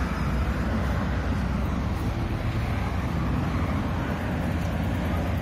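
Steady low rumble of street traffic, with no barks or voices standing out.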